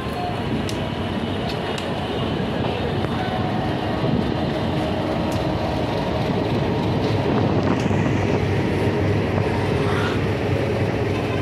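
Passenger train coach running on the rails, heard from its open doorway: a steady rumble of wheels on track, with a few sharp clicks as the wheels cross rail joints and points.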